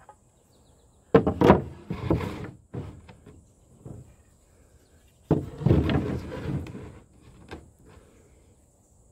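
Thin oak flooring strips clattering and scraping against one another as they are picked up and laid on a stack. There are two bursts of wooden knocks, about a second in and again about five seconds in, with a few lighter taps between them.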